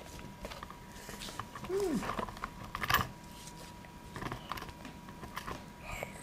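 Small clicks, knocks and scrapes of a toy dinosaur figure being handled and moved over a nativity scene's bark-chip ground and props, the sharpest knock about three seconds in.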